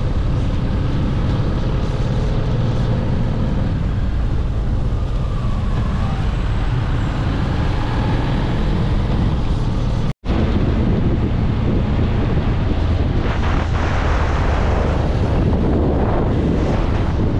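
Honda X-ADV 750 motorcycle on the move: the parallel-twin engine running under steady wind rush on the microphone. The sound drops out for an instant about ten seconds in.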